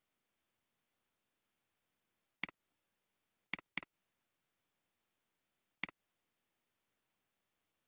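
Computer mouse clicks: four short sharp clicks, the middle two in quick succession, over near silence.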